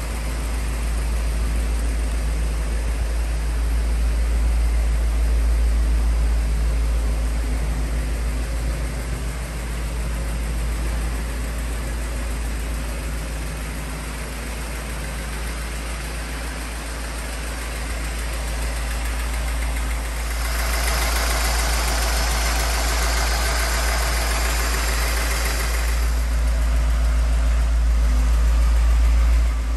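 A car engine idling steadily with a low rumble, most likely the 1982 Mercedes-Benz 500 SL's V8. For about five seconds past the middle a loud hiss rises over it and then stops.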